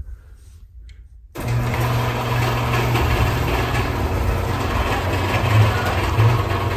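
An old garage door opener's motor running steadily with a low hum as it drives the overhead door along its track. It starts about a second and a half in, with two brief louder bumps near the end.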